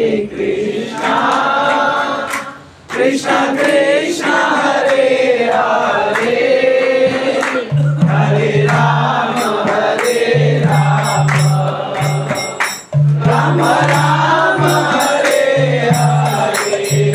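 A man singing a devotional kirtan chant, with other voices in the room joining. From about six seconds in, a steady percussion beat with jingling hand-cymbal-like clicks comes in, and a low pulsing beat follows about two seconds later.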